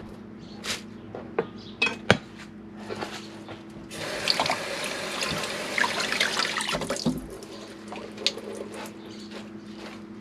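Kitchen tap running into a sink for about three seconds, starting about four seconds in and shutting off at about seven seconds. A few sharp knocks and clicks of kitchen work come before and after it, over a steady low hum.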